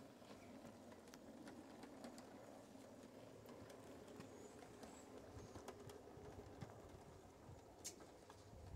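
Very faint running of a small model diesel locomotive and its van on garden-railway track: a low steady hum with scattered light clicks.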